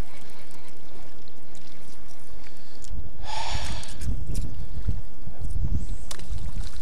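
Wind buffeting the microphone over choppy lake water. About three seconds in, a brief whirr as a baitcasting reel's spool spins out line on a cast.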